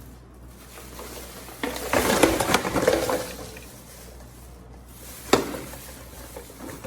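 Handling noise: a rustling, crackling stretch lasting about a second and a half, then a single sharp knock a few seconds later.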